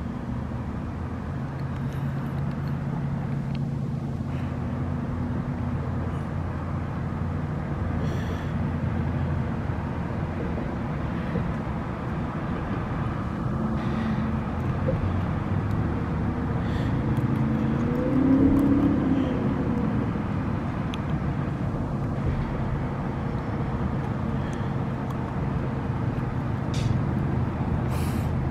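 Steady low rumble of road traffic with an engine hum, swelling briefly about two-thirds of the way through. A few faint short clicks sit over it.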